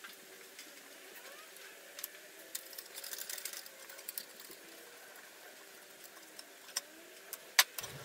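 Light metal clicks and taps from hands handling steel motor-mount brackets on a small machine frame: a brief cluster of small ticks a few seconds in, and a few sharper clicks near the end.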